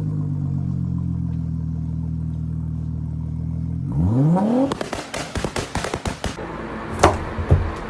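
An engine idling steadily, then revved up sharply about four seconds in. A quick run of clattering knocks follows, with two louder hits near the end.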